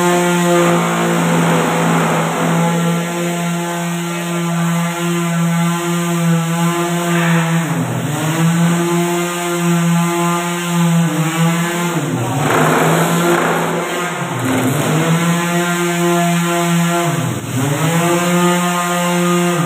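Corded electric sander running steadily while sanding a wooden door frame, its motor hum dipping briefly in pitch and recovering several times.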